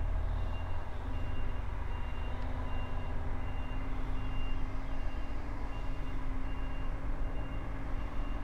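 A truck's reversing alarm beeping at an even pace, about one and a half beeps a second, over the low, steady running of the truck's engine as it backs up.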